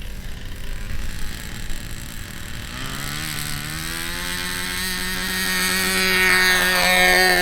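SH GF6 .37 glow-ignition model airplane engine running unevenly at low throttle. About three seconds in, its pitch climbs and then holds, and it grows louder toward the end as the throttle is opened.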